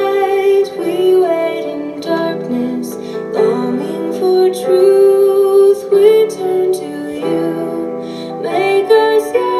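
A congregational hymn sung by a female voice with instrumental accompaniment: a slow verse melody of held notes that changes every second or so.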